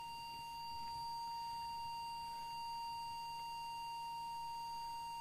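Steady test tone near 1 kHz (B flat, octave 5) from a Korg chromatic tuner, held unbroken. It is the audio source fed into a CB transmitter's microphone input for setting its FM deviation.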